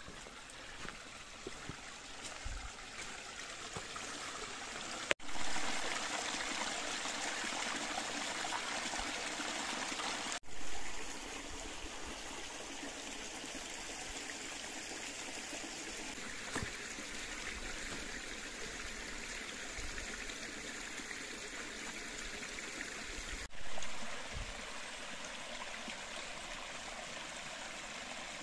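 A brook running steadily through a gorge, a continuous rush of water. The sound breaks off abruptly and resumes three times, about five, ten and twenty-three seconds in, each time slightly louder or softer.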